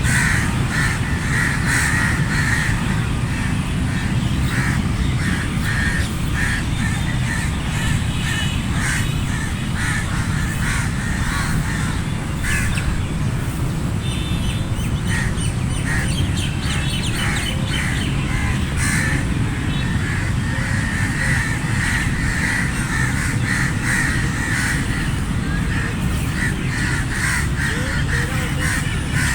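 A flock of crows cawing, many short caws overlapping and repeating without a break, over steady low background noise.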